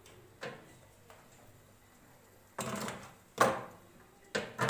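An ice-cube tray being set into a refrigerator's freezer compartment and the compartment's plastic flap being shut. A faint click comes first, then a short scrape a little past halfway, then two sharp plastic knocks.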